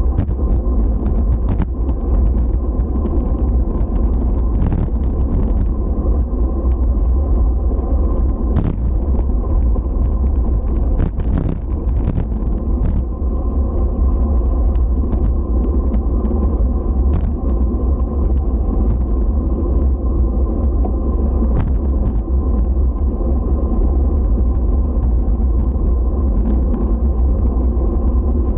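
Steady low rumble of road travel, with a few sharp clicks scattered through it.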